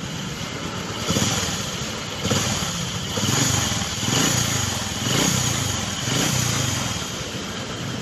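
Honda Supra X 125's single-cylinder four-stroke engine running just after first start-up following an overbore rebuild with an oversize piston and rings. The engine speed rises and falls about once a second.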